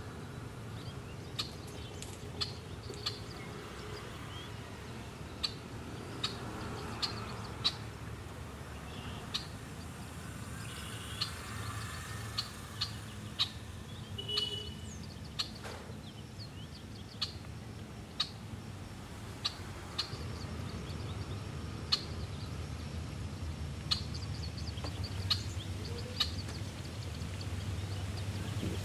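Outdoor ambience: many short, sharp high ticks at irregular intervals, with a brief high chirp about halfway through, over a low steady hum.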